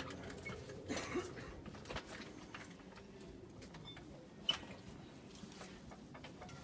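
A few faint, scattered knocks and clicks from metal parts being shifted while an engine and gearbox are maneuvered into place, over a low steady hum; the sharpest knock comes about four and a half seconds in.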